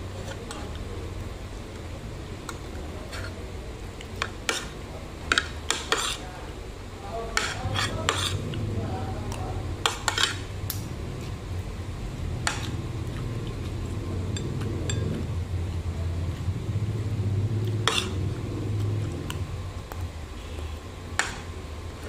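Metal spoon and fork clinking and scraping against a dish while someone eats, in irregular taps with a few quick clusters.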